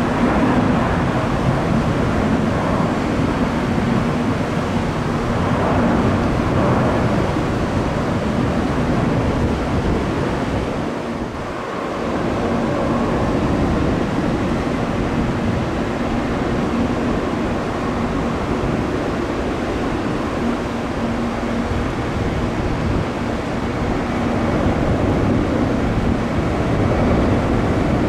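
Jet airliner engines running: a loud, steady rush with a faint low hum under it, easing briefly about eleven seconds in before building again.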